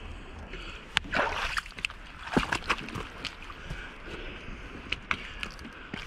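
Shallow seawater splashing and sloshing as someone wades through it, in a series of separate splashes, the loudest about a second in and again about two and a half seconds in.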